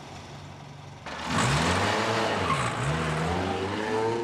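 Car engine idling, then revving hard about a second in as the car pulls away, its pitch rising, dropping and rising again through the gears.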